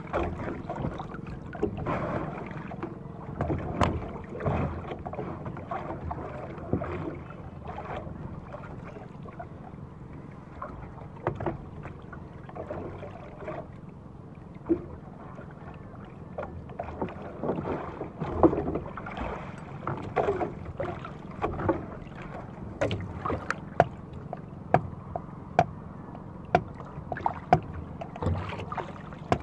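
Water slapping and lapping against the hull of a small outrigger boat, with wind on the microphone, faint low humming, and scattered sharp knocks and clatters against the boat, coming more often in the second half.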